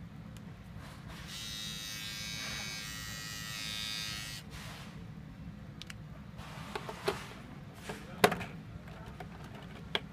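Battery-powered electric grooming trimmer switched on, its small motor buzzing steadily for about three seconds before stopping. A few sharp clicks follow in the second half, the loudest about eight seconds in.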